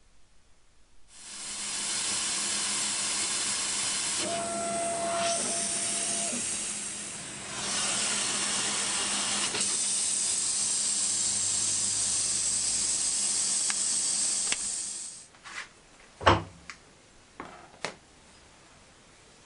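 Laser cutter's air assist and extraction running: a loud, steady hiss over a low hum, with a brief steady tone partway through, cutting off near the end. A few sharp knocks and clicks follow, one loud, as the cut wooden parts are handled.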